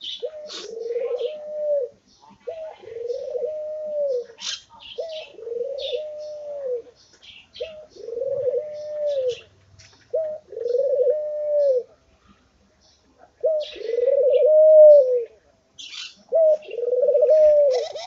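Ringneck dove cooing: a short note, then a longer rolling coo, repeated about every two seconds, eight times in all. Short high-pitched chirps come between the coos.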